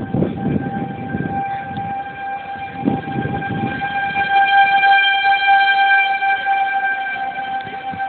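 Outdoor tornado warning siren sounding a steady, held tone, a little louder in the middle. It is the alert for a tornado nearby. Low rumbling noise comes and goes in the first half.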